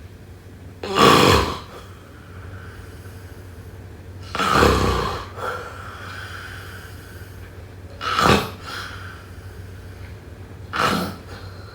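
A person snoring: four loud snores, one about every three seconds, over a faint steady low hum.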